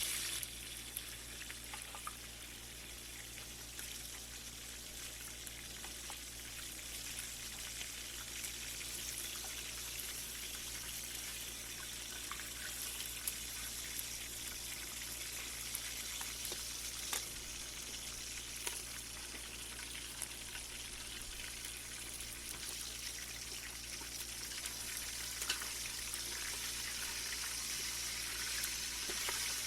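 Chicken pieces frying in hot ghee in a pan: a steady sizzle with scattered sharp crackles and pops.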